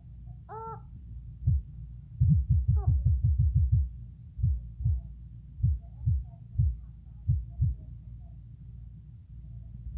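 A brief pitched tone under a second in, then a quick run of low thuds, about eight a second for two seconds, followed by single low thuds spaced roughly half a second to a second apart.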